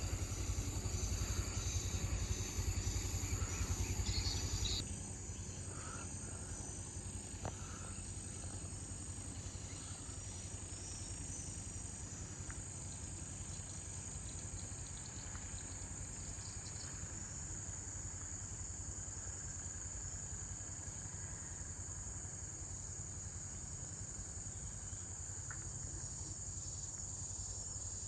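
Steady high-pitched drone of insects such as crickets or cicadas over a faint, even background hiss. A louder low rumble underneath for the first five seconds stops abruptly.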